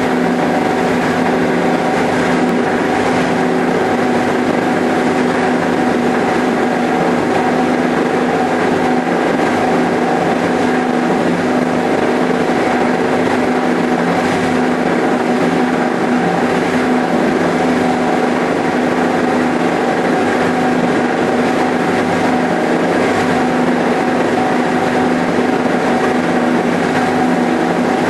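Plastic film grinder running steadily as waste film is fed into it, with the blower that carries the ground film to the recycling plant. Together they make a loud, unbroken industrial drone with a steady hum in it.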